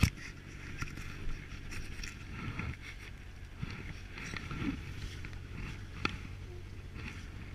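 Snowmobile engine idling steadily, with a sharp knock about six seconds in.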